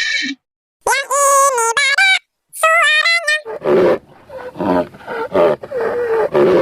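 A high-pitched cartoon singing voice sings two short phrases, then an animal roars in low, rough growls for about three seconds, as a wild animal's call is played.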